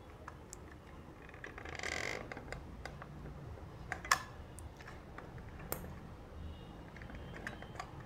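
Faint handling noise: a few scattered sharp clicks and a brief soft rustle as a hand works a hot glue gun and a power bank circuit board over a pack of lithium-ion cells.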